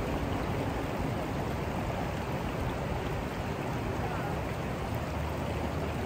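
River water rushing steadily over rocks and through a shallow riffle.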